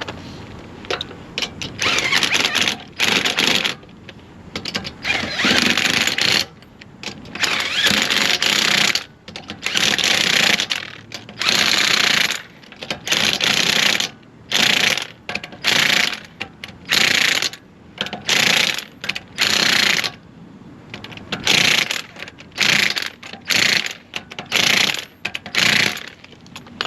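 Ingersoll Rand 1/2-inch impact wrench hammering in a long series of short bursts, one after another, as lug nuts are run on and tightened on a reinstalled wheel.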